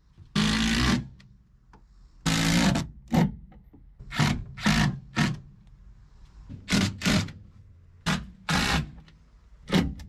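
Power drill driving screws straight through an aluminum piece into fiberglass without pilot holes, in about a dozen short trigger pulls: two longer runs of about half a second early on, then quicker bursts with pauses between.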